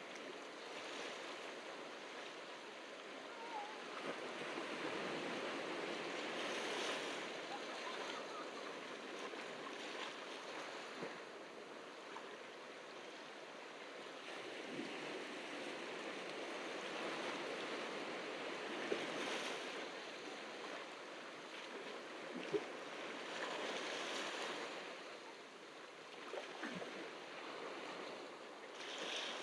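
Ocean waves washing onto the beach, a steady hiss of surf that swells and eases in slow surges. A couple of short faint clicks stand out in the middle.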